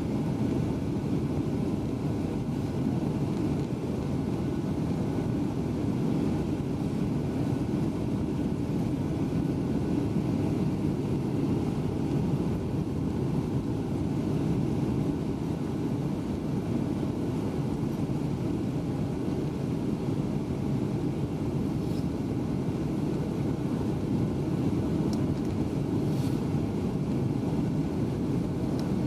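Steady cabin noise inside a Boeing 737-800 on approach: the CFM56 engines' low hum and rushing airflow, with a few faint steady tones above it and the odd faint tick.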